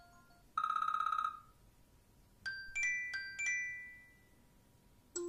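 iOS 7 ringtones previewed one after another on an iPhone, each cut off after a second or so: first a rapid pulsing tone, then four bell-like notes that ring out, and right at the end the start of another melody.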